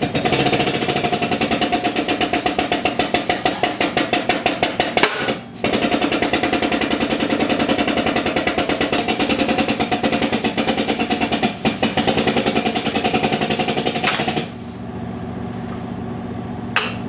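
A power tool running with a fast, even rattle of hammering impacts over a steady hum, breaking off briefly about five seconds in, then dropping to a quieter steady running near the end.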